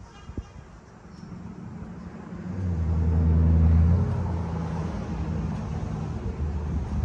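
Ford F-350 Super Duty's 6.7-litre Power Stroke V8 turbo diesel idling, a steady low drone that swells louder for about a second and a half near the middle, around the exhaust tips, then eases back. A brief knock near the start.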